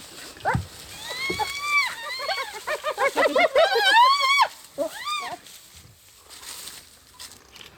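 Animal calls: a quick run of high, arching calls, each rising and then falling in pitch, packed most closely together from about three to four and a half seconds in.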